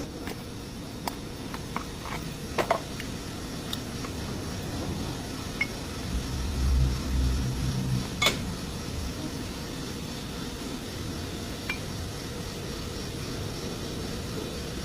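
Scattered light metal clinks and taps, as of tools and brake parts being handled, with a low hum swelling for about two seconds in the middle.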